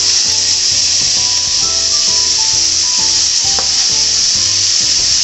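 Pork sizzling in hot oil in a frying pan as it is stirred, with sliced green peppers and onions slid in from a cutting board in the later part, over light background music with a steady beat.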